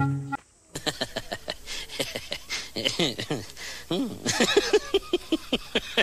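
Rubber balloon squeaking as a macaque squeezes and rubs it with its hands and mouth. From about a second in there is a rapid string of short squeaks, some sliding up and down in pitch.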